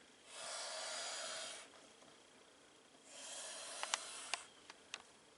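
Suriname boa constrictor hissing: two long, even hisses a couple of seconds apart, the sign of an agitated, defensive snake. A few light clicks come during the second hiss.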